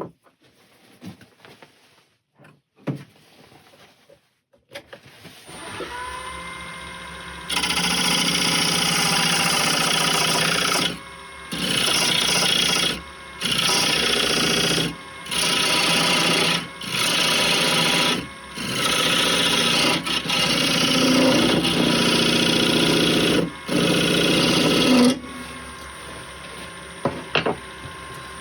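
A few light knocks, then a wood lathe starts about five seconds in, its motor whine rising to speed. A tool or abrasive is then worked against the spinning wooden blank in repeated loud, rough passes of a second or two with short breaks. Near the end the passes stop and the lathe keeps running.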